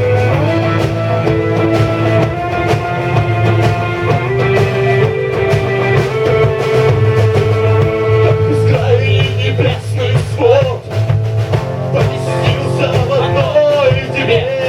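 Live rock band playing a song: drums and bass guitar under held keyboard and electric guitar chords, with a lead vocal coming in about nine seconds in.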